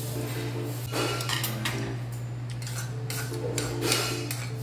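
Spoons and chopsticks clinking and scraping against small bowls and a stone pot during a noodle meal, in short clusters about a second in and again around three and a half seconds, mixed with the slurping of noodles. A steady low hum runs underneath.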